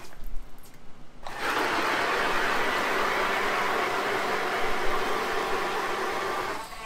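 ION G2 electric ice auger starting about a second in and running steadily as it drills through the ice under a floor hole, then stopping shortly before the end. A few knocks come first as the power head is fitted onto the auger shaft.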